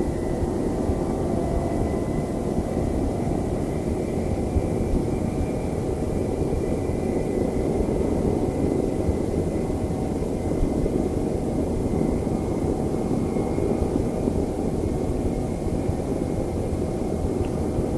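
Airliner engines running steadily at a constant level, a low rumble with a faint steady high whine over it.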